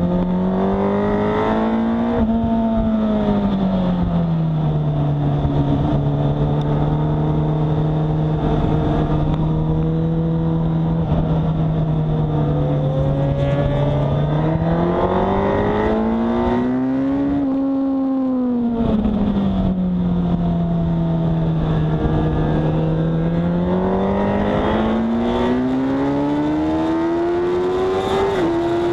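Sport motorcycle engine heard onboard at a track day. The revs rise and fall through the corners and hold steady through long turns, then climb hard near the end as the bike accelerates onto the straight, with a steady rush of wind noise underneath.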